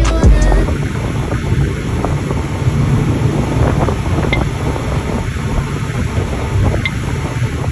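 Wind buffeting the microphone: a loud, uneven rumble with a rushing hiss over it.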